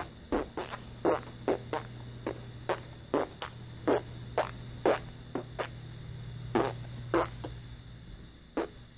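A run of short, sharp clicks, irregular at about two or three a second, over a steady low hum.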